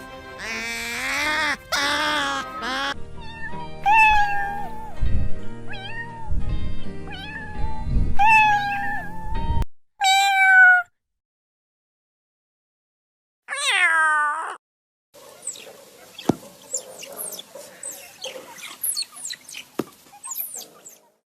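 Cats meowing: a run of short meows, then one longer meow falling in pitch about two-thirds of the way through. Background music with a low beat plays under the first half.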